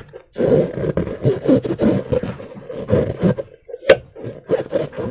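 Slime being squished and worked by hand: irregular wet squelching and crackling in uneven bursts, with one sharp click about four seconds in.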